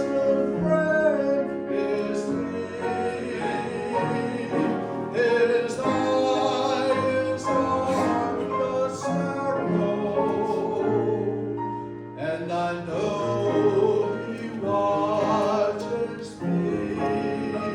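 Gospel music: singing with instrumental accompaniment, the voice holding and moving between sustained notes.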